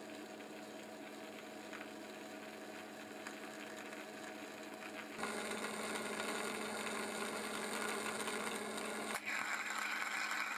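Homemade resistor-capacitor EDM (spark erosion) machine running: a steady hum with a hissing buzz of sparks eroding under the liquid dielectric. It gets louder about five seconds in and takes on a brighter hiss about nine seconds in.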